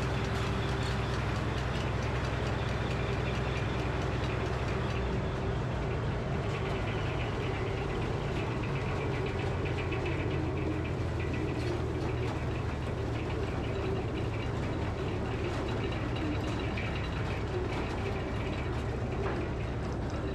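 Engine driving a Frick sawmill, running steadily without changing pitch.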